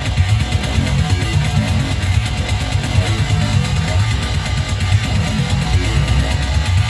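Distorted modular-synth music: a Behringer Edge percussion synthesizer sequence driven through distortion, a resonator, a filter and reverb, with fast repeating low pulses under a constant gritty hiss.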